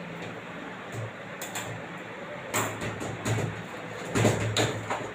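Scattered knocks and clatter of things being handled, half a dozen sharp strokes over a steady low hum.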